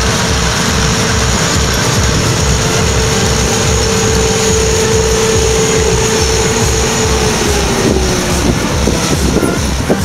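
Claas Lexion combine harvester running while harvesting rapeseed: a steady engine and threshing-machinery noise with a constant whine that drops slightly in pitch near the end.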